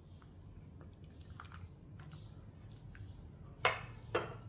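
Stainless-steel ladle moving and dripping in a pot of broth with faint liquid sounds, then two sharp clanks near the end as the ladle is set down.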